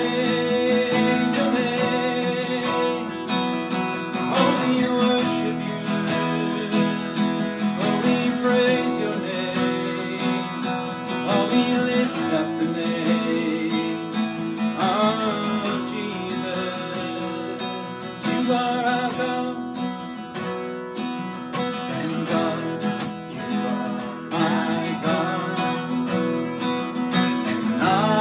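Acoustic guitar strummed in steady chords while a man sings a worship song.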